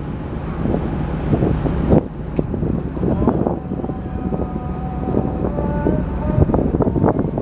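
Wind buffeting the microphone over a continuous low rumble. Faint steady tones come in about three seconds in and stop near the end.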